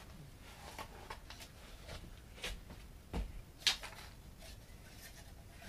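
Scattered light knocks and clicks from a thin wooden board being handled, with a dull thump about three seconds in and a sharp click just after it.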